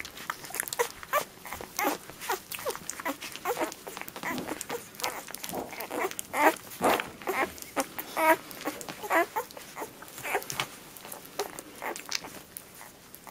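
One-week-old poodle puppies nursing: many short, wavering squeaks and whimpers mixed with quick sucking and smacking clicks.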